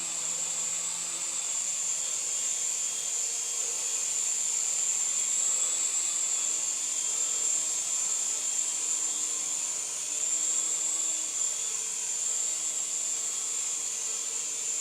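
Syma S107G mini RC helicopter in flight: its small electric motors and coaxial rotors whir in a steady high-pitched whine, the pitch wavering slightly now and then.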